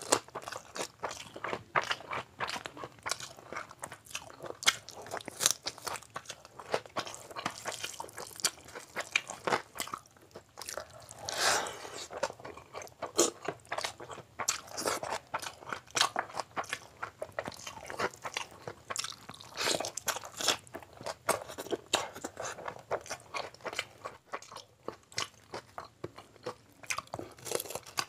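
A person eating chicken and mutton biryani by hand, chewing close to the microphone: a steady run of short clicking chewing sounds, several a second, with one longer, noisier sound about eleven seconds in.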